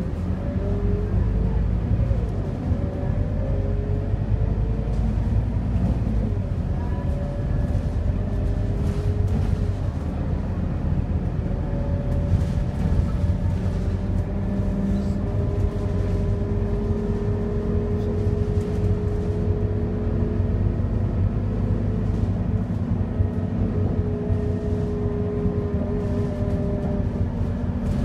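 Scania K230UB city bus heard from inside while under way: a steady low engine and drivetrain rumble with road noise and a faint whine that shifts slightly in pitch.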